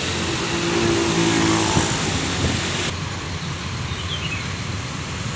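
Diesel engine of a large intercity coach running as it pulls out and drives off, a steady pitched drone. About three seconds in the drone drops away abruptly, leaving an even traffic hum.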